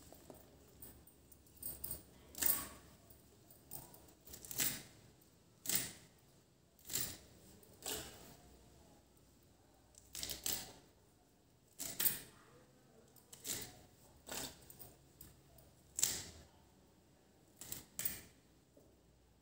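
Yardlong bean pods being cut into short pieces in the hands, each piece coming off with a crisp snap, roughly once a second at an uneven pace.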